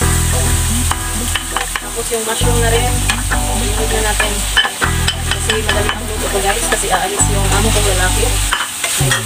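Sliced mushrooms and carrot strips sizzling as they hit hot oil in a wok and are stirred with a wooden spatula, with frequent scrapes and taps of the spatula against the pan. Background music with sustained low notes that change every couple of seconds plays underneath.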